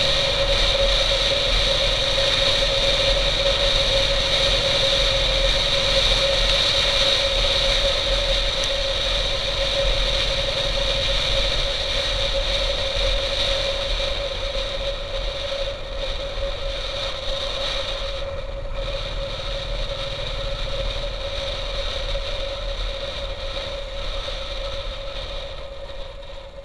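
Motorcycle engine running steadily while riding, heard from the rider's position with road and wind noise. It gets gradually quieter over the last several seconds.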